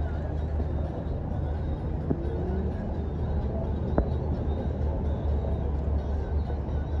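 Steady low rumble of outdoor city ambience with faint distant voices mixed in, and a single sharp tap about four seconds in.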